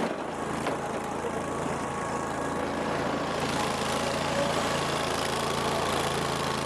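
Cub Cadet lawn tractor's small engine running steadily, an even hum that holds the same pitch throughout.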